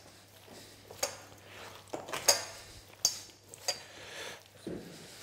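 Coleslaw being mixed by hand in a stainless steel bowl: a handful of irregular short metallic clinks and knocks against the bowl, with soft rustling of the dressed cabbage between them.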